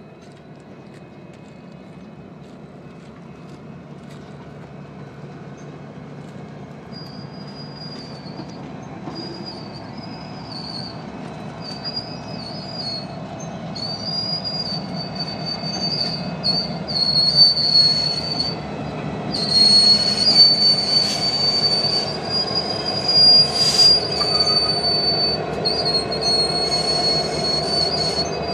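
Slow-moving freight train of centerbeam flatcars and a Union Pacific diesel locomotive rolling past, growing louder over a low rumble. Its wheels squeal in a high screech that comes and goes, strongest in the second half, with a couple of sharp knocks.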